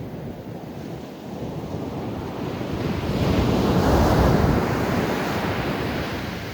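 Ocean surf: one wave swells, breaks loudest about four seconds in, and washes back out.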